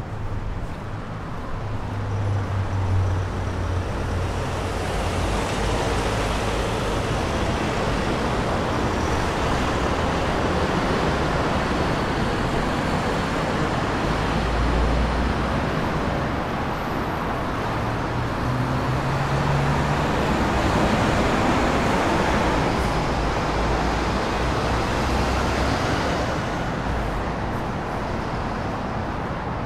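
Road traffic on a city street: a steady wash of vehicles passing, swelling and fading, with engines humming low as they go by and one rising in pitch a little past halfway.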